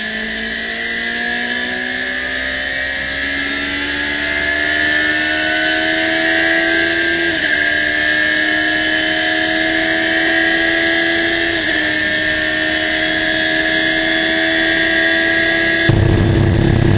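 Radical SR3's Suzuki-based four-cylinder motorcycle engine under full throttle, heard onboard. Its pitch climbs steadily through the revs, with two quick upshifts, about seven and twelve seconds in, that each drop the pitch only slightly before it climbs again. Near the end a loud rushing noise suddenly joins.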